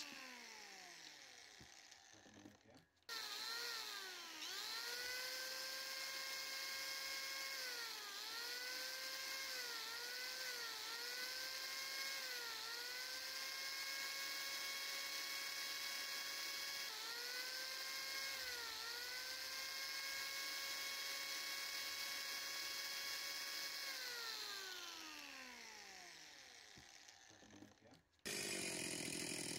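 Electric angle grinder running at a steady whine, its pitch dipping briefly each time the disc is pressed into the carving wood and recovering between passes; it spins up after a break about three seconds in and winds down with a long falling whine a few seconds before the end.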